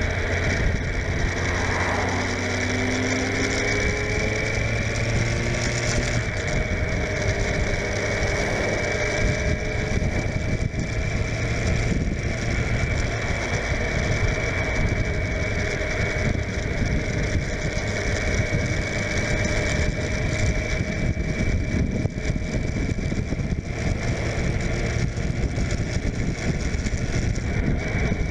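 Suzuki GSF600 Bandit's inline-four engine running on the move, with wind noise over the microphone. The engine note climbs over the first few seconds, then holds steady.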